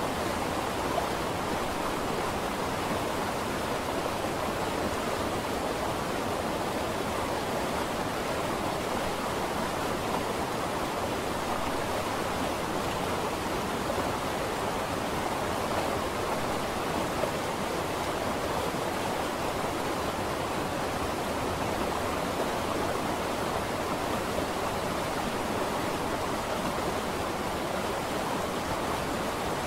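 A steady, even rushing noise, mid-pitched, with no separate sounds standing out from it.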